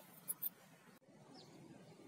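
Quiet room tone with two brief light clicks in quick succession about a third of a second in.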